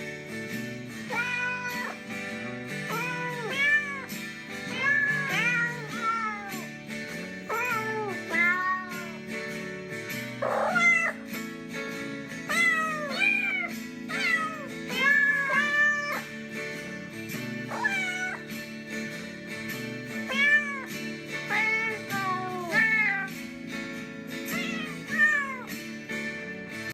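A Christmas tune sung in meows: a string of pitched cat meows carries the melody over steady backing music.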